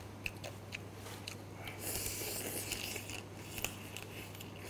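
Close-up eating sounds of a person biting into and chewing butter-grilled crayfish meat: scattered sharp clicks and smacks, with a longer hiss about two seconds in.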